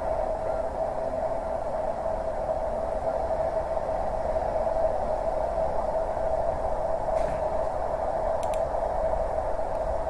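Steady, even hiss-like noise, strongest in a narrow mid band, with two brief clicks about seven and eight and a half seconds in.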